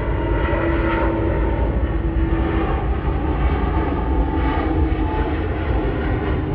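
Jet engines of a British Airways Airbus A350-1000, Rolls-Royce Trent XWB-97 turbofans, giving a steady deep rumble with a faint hum as the airliner climbs out after take-off.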